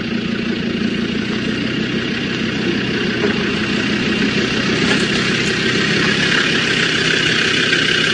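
SUV engine idling steadily, growing a little louder in the second half.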